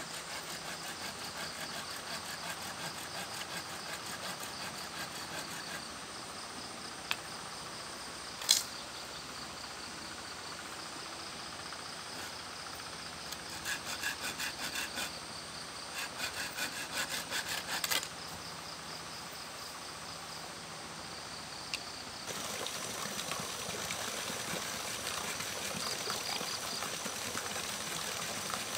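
Insects chirping steadily, with a single sharp knock about a third of the way in and, around the middle, a louder run of rapid pulses at about four a second. About three quarters of the way through, the sound switches to a steady rush of flowing water.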